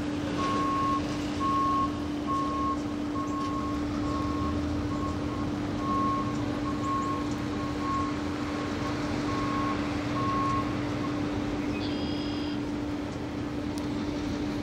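An electronic warning beeper sounding about once a second, then stopping about eleven seconds in, over a steady low hum and a constant hiss of background noise. A short higher tone is heard a little later.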